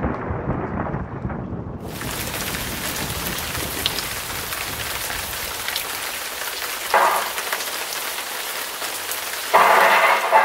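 Thunder rumbling and dying away, then steady heavy rain hissing from about two seconds in. A louder sound cuts in abruptly near the end.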